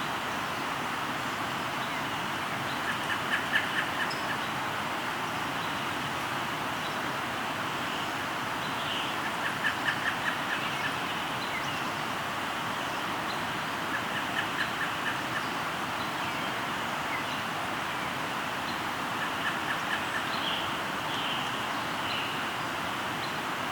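Steady rush of a flowing river, with a bird calling over it in a quick run of six to eight short, evenly spaced notes, repeated about every five seconds.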